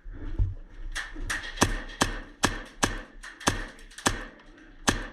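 Airsoft gunfire: a string of about ten sharp cracks, roughly two to three a second.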